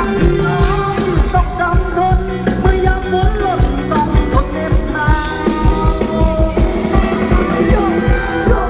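Live band playing Thai ramwong dance music: singing over a steady drum beat.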